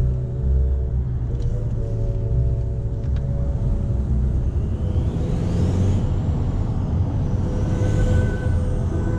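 In-cabin sound of a BMW F10 535d under way: its 3.0-litre twin-turbo diesel straight-six, stage-1 tuned and straight-piped, and the tyres make a steady low rumble.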